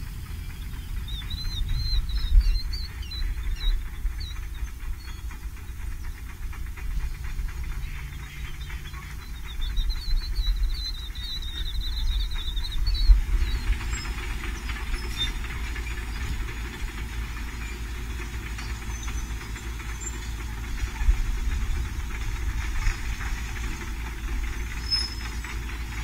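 Wind buffeting the microphone with a low, uneven rumble, while birds give quick series of high chirping calls about a second in and again around ten seconds in. From about thirteen seconds a steadier rushing noise joins, with a few faint high bird notes.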